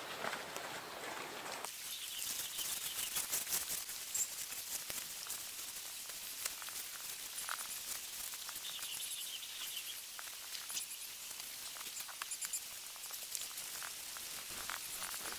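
Faint outdoor ambience: scattered rustles and clicks from camping gear being handled and packed, with small birds chirping now and then.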